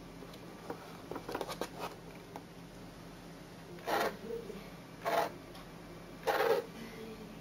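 Two hobby RC servos driving a pen-plotter's five-bar arm linkage, whirring in three short bursts about a second apart as the pen is swung along each stroke of the drawing. Before that, a few light clicks and rustles as the paper and pen are handled.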